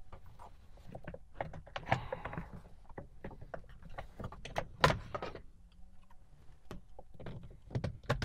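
Plastic steering column shroud halves of a Saab 9-5 being pulled apart by hand: a run of irregular plastic clicks, knocks and rattles, the loudest about five seconds in and another near the end.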